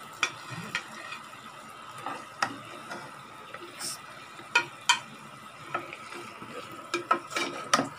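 Steel spoon scraping and clinking against a metal cooking pan while scooping cooked vegetables. Scattered sharp clicks, several in quick succession near the end.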